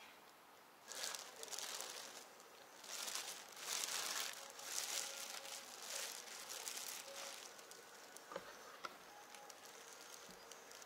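Clear plastic bag crinkling and rustling in bursts as a cat water fountain is pulled out of it and unwrapped. The crinkling fades in the second half, leaving a few light knocks.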